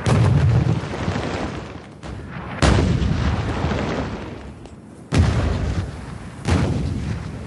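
Artillery fire: four heavy blasts of shells bursting, about two seconds apart, each hitting suddenly and fading into a rumble.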